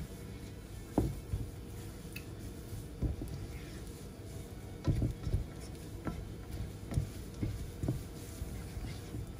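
Silicone spatula tossing and stirring noodles in a nonstick wok: soft, squishy thumps and scrapes coming irregularly, about once a second, the loudest about a second in and around the middle.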